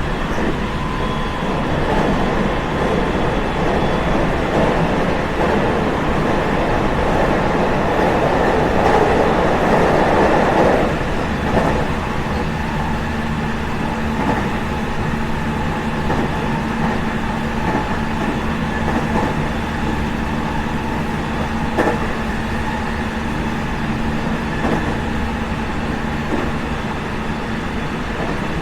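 JR West 207 series 1000-subseries electric train with a Toshiba GTO-thyristor VVVF inverter, running, heard from on board: continuous wheel and motor rumble with steady tones from the traction equipment. A louder rushing noise swells about eight seconds in and cuts off about three seconds later, after which a steady low hum carries on. The unit is noted for its unusual running sound.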